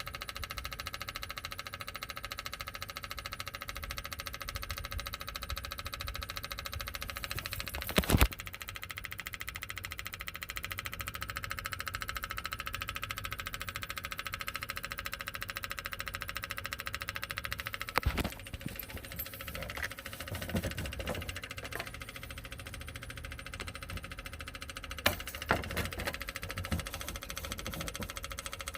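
Cat 1.1-litre three-cylinder diesel on a Scag mower running steadily after a fuel system repair, with a rattle from the back of the engine that the owner puts down to a bracket needing mending, not the bearings. Loud knocks come about eight and eighteen seconds in, with a few smaller clicks after.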